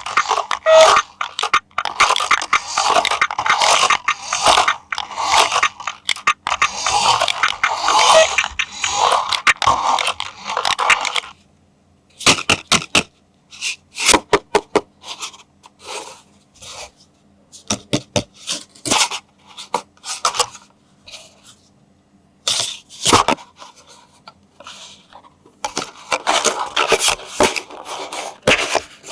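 Toy packaging being handled: dense rustling and scraping for the first third, then a run of separate clicks and taps with short pauses between them, and rustling again near the end.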